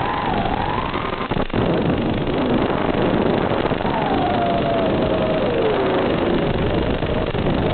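FPV quadcopter's brushless motors whining, their pitch rising and falling with the throttle: up in the first second, sliding down from about four seconds in, and up again at the end. A heavy steady hiss runs underneath, and there is a single sharp click about a second and a half in.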